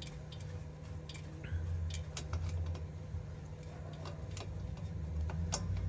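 Scattered light metallic clicks and clinks of a hand wrench working a bolt on a car's rear brake caliper assembly, over a steady low hum.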